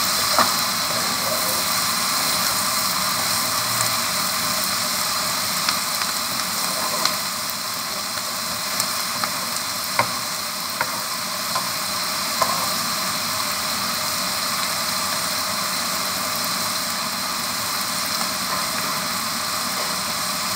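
Spring-onion stalks, potato and shrimp sizzling steadily in a frying pan. A wooden spatula knocks against the pan a few times as the food is stirred during the first half.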